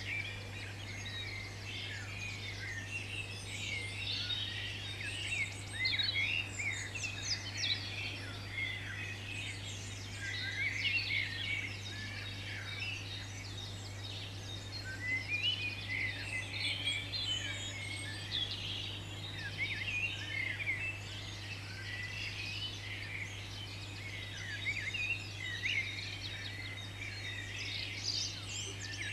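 Many birds chirping and singing at once, a dense chorus of short high calls that swells and eases throughout, over a steady low hum.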